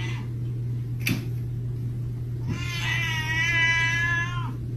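Cat giving one long, drawn-out meow, starting a little under three seconds in and lasting nearly two seconds. A sharp click comes about a second in, and a steady low hum runs underneath.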